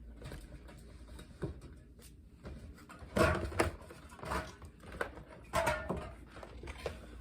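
Aluminium drink cans being handled and set into a mini refrigerator: a series of knocks and clatters, the loudest about three seconds in and again just after five and a half seconds.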